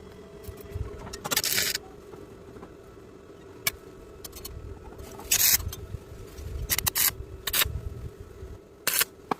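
Stick welder arc crackling in several short bursts, as when tacking steel square tube, over a steady hum.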